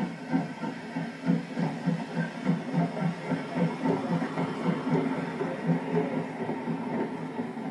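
1937 Andrew Barclay steam tank locomotive pulling away with its coaches and passing close by, a steady beat of low pulses, about two to three a second, over the rumble of the train.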